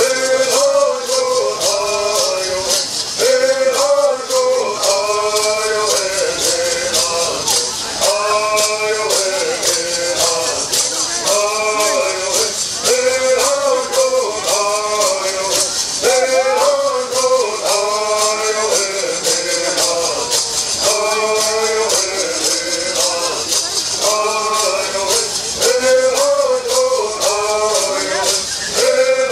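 Southern California Bird song sung by a group of male bird singers, with the fast, steady shaking of gourd rattles keeping time under the voices.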